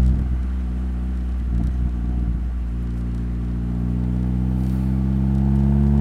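Mitsubishi Colt CZT's turbocharged 1.5-litre four-cylinder engine at low, steady revs, heard through a microphone at the exhaust tailpipe. The note eases off just after the start and grows gradually louder again towards the end.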